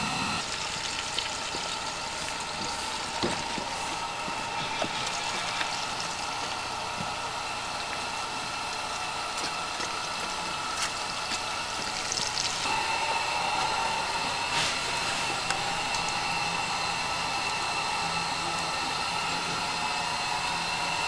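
Steady hiss with a few faint, even hum tones and scattered soft clicks; the hum shifts slightly about two-thirds of the way through.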